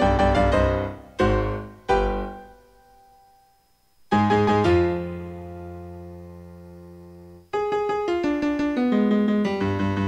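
Background solo piano music: quick running notes, two struck chords that ring and fade into a short pause, then a chord held and left to fade before quick running notes start again.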